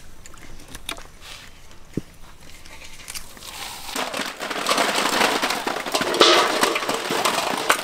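Many snail shells clattering and scraping together in a metal basin as they are stirred by hand, a dense crackling rattle that starts about three seconds in and grows louder.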